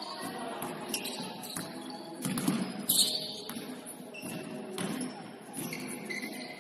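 Sounds of an indoor basketball game: the ball bouncing on the court among scattered knocks and players' voices, loudest about two and a half to three seconds in.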